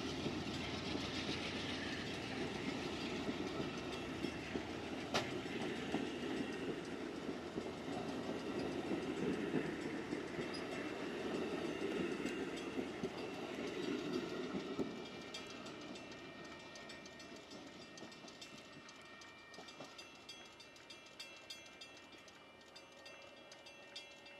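Amtrak Superliner double-deck passenger cars rolling past, a steady rumble with wheels clacking over the rails, then fading away about fifteen seconds in as the end of the train recedes. Faint, evenly spaced ticking follows.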